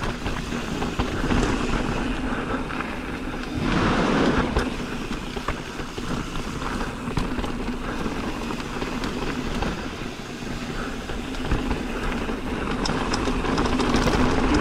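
Mountain bike descending a rough trail: a constant rush of wind and tyre noise with rattling and knocks from the bike, and a steady low hum underneath. It gets louder for a moment about four seconds in.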